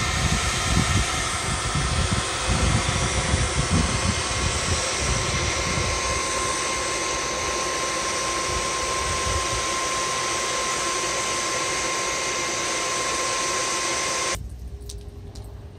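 Hair dryer on its lowest setting blowing air up the PVC pipe into the charcoal forge: a steady rushing hum with a thin whine, with an uneven low rumble over the first few seconds. It switches off suddenly about fourteen seconds in.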